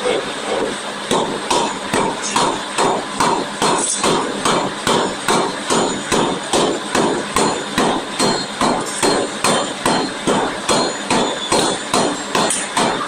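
Forging hammer striking a workpiece in a steady rapid rhythm, a little over two blows a second.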